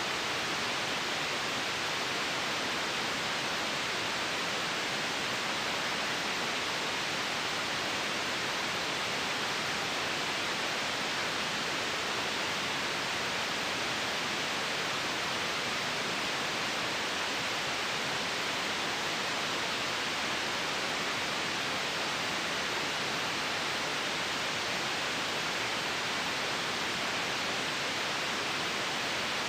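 White noise: a steady, even hiss that does not change.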